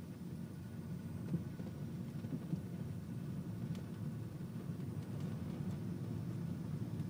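Steady low road and diesel engine rumble inside a Peugeot 406 HDi on the move, with a few short knocks from the front suspension: the rattle of worn anti-roll bar drop links.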